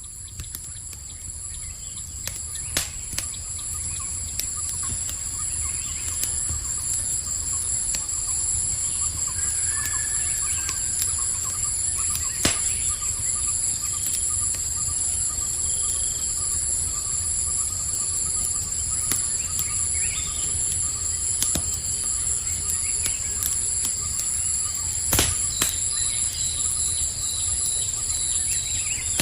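Campfire crackling, with sharp pops about three seconds, twelve seconds and twenty-five seconds in, over a steady high trilling of crickets. Faint bird calls come in now and then, and the whole fades in over the first few seconds.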